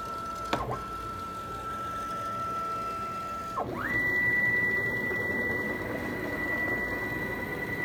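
CNC router spindle running with a steady high whine and a sharp click about half a second in. About three and a half seconds in, the whine dips briefly, then climbs to a higher steady pitch as the spindle speeds up, and the machine noise grows louder.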